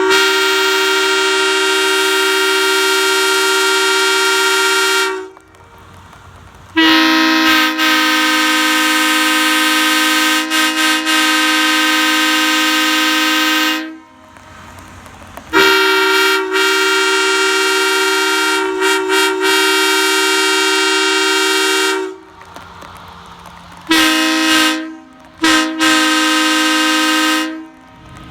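Three-chime train air horns, a Leslie S3L bronze tabby and a Nathan Airchime J3 snowplow horn, blowing steady chords. There are three long blasts of about five to seven seconds each, then two short blasts near the end.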